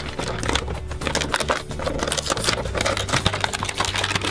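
Rapid clicking and crinkling of plastic toy packaging being opened and handled.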